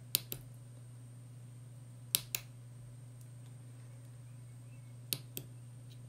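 Small tactile push button on a breadboard clicking as it is pressed and released, three times, each press a pair of sharp clicks about a fifth of a second apart, over a faint steady low hum.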